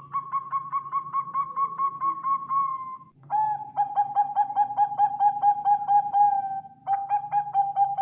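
Zebra dove (Bangkok perkutut) cooing in three trilled phrases, each a held note broken into about four quick pulses a second. The first phrase is higher-pitched and the next two are lower. A faint steady hum lies underneath.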